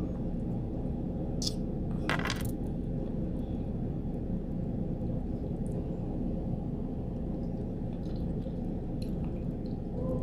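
A utensil clinking against a dish a few times, sharp short clicks in the first few seconds, over a steady low background hum.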